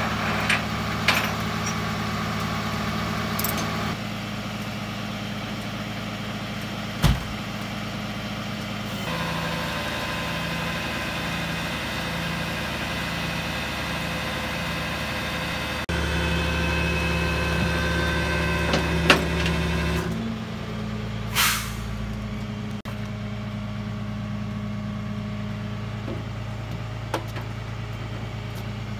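Vehicle engine idling steadily, in several cut-together stretches that change in pitch and loudness, with a few sharp knocks and one short hiss about two-thirds of the way through.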